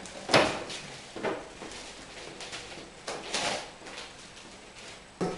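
A wooden folding chair knocks and creaks as someone sits down heavily on it, followed by a few softer knocks and shuffling.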